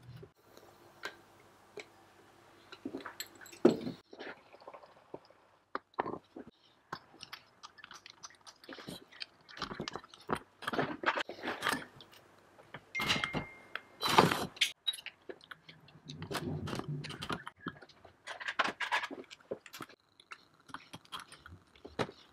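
Irregular clinks, clicks and knocks of metal engine parts and tools handled on a steel workbench during assembly of an IAME X30 two-stroke kart engine. The sharpest knocks come about four seconds in and again around fourteen seconds.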